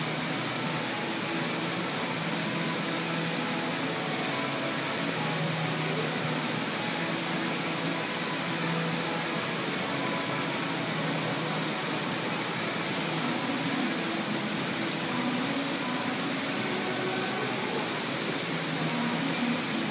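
Steady hiss and splash of small fountain jets spraying and falling back into the pool, with faint steady tones underneath.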